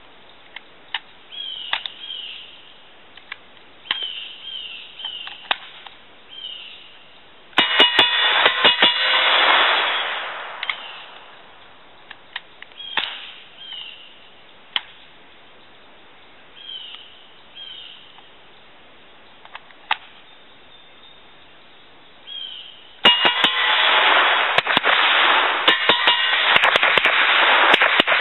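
Suppressed semi-auto Uzi short-barreled rifle fired in quick strings of shots: one string about eight seconds in that dies away after a couple of seconds, and a longer one from about 23 seconds on. Between them come light clicks of the gun being handled.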